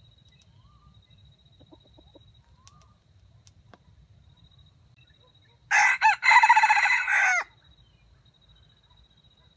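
A junglefowl rooster crowing once, about six seconds in: a short, clipped crow of under two seconds, broken by a brief catch just after it starts.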